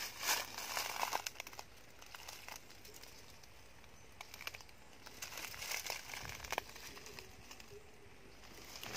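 Dry leaves and twigs crackling and rustling as someone moves through dry undergrowth, in faint scattered snaps that are busiest in the first second or so and again about six seconds in.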